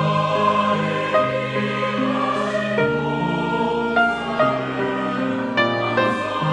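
Church choir singing a hymn in several parts, with held notes that shift in pitch every half second or so.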